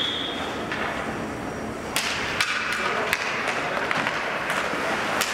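Ice hockey play resuming from a faceoff: sharp clacks of sticks on the puck and on each other, starting about two seconds in, with skates scraping the ice and crowd murmur echoing around the rink.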